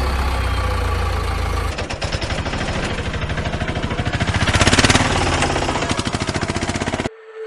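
A vehicle engine sound. A steady low hum gives way about two seconds in to a fast, even rattling chug that grows louder toward the middle and stops abruptly near the end.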